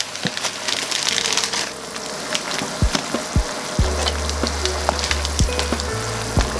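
A pot of water bubbling at a rolling boil, with light knocks and clicks as blocks of dried instant noodles are dropped in and pushed around with a wooden spoon.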